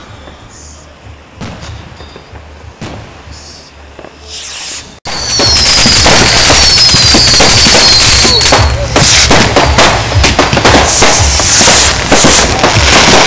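Fireworks going off: scattered bangs for about five seconds, then an abrupt jump to loud, dense crackling and bangs, with whistles falling in pitch soon after the jump.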